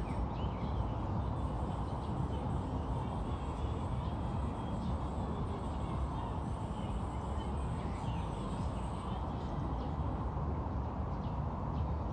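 Outdoor ambience: a steady low rumble, with faint bird calls and chirps above it.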